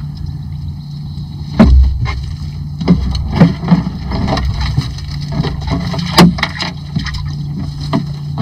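Wire-mesh crawfish trap being handled on a boat deck, the wire cage rattling and knocking against the hull, with several sharp knocks standing out, over a steady low hum.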